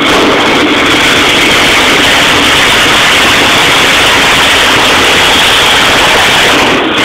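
A loud, steady hiss of rushing air or gas that starts suddenly and cuts off near the end, with no hammer blows.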